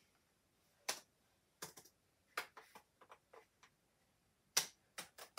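Irregular sharp clicks and light knocks from a laptop being handled, about ten in all, the loudest about a second in and another near the end.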